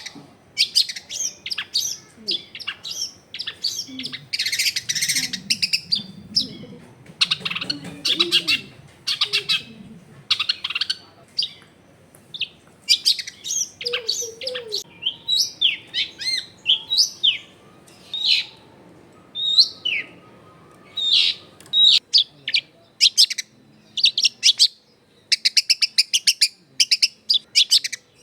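Long-tailed shrike (cendet) singing a varied, chattering song of sharp chirps, downward-sweeping notes and buzzy phrases, with a fast run of clicking notes near the end.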